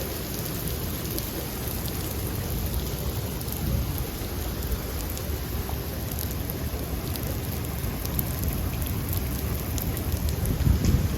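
Steady rain, with low rumbling thunder that swells to its loudest near the end.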